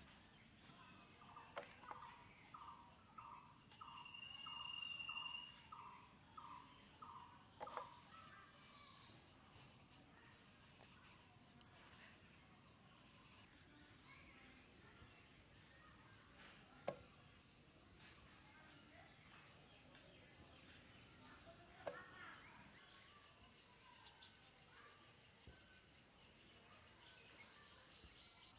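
Faint outdoor ambience dominated by a steady high insect drone. In the first several seconds a bird calls a run of about ten short repeated notes, two a second. A few soft clicks come from a bonti blade slicing raw potato into strips.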